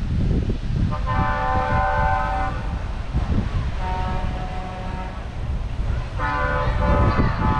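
Truck air horns sounding three long, steady multi-tone blasts, the middle one fainter, over a continuous low rumble.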